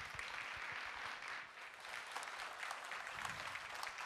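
Audience applauding steadily, a dense patter of many hands clapping at once.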